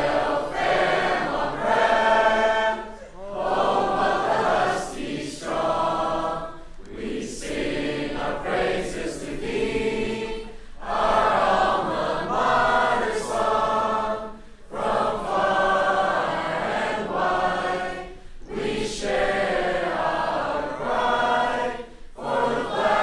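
A large group of mixed male and female high-school voices singing the school alma mater together in sung phrases, with a short breath between phrases about every four seconds.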